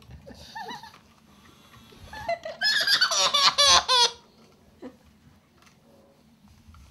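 A young boy laughing hard in a quick run of high-pitched giggles, loudest from about two to four seconds in, with softer laughter near the start.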